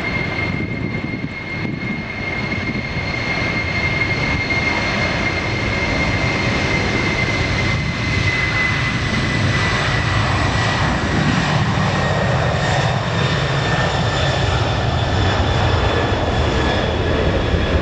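Jet airliner's engines: a steady high whine that slowly drifts down in pitch over a loud rushing rumble, with the low rumble building in the second half.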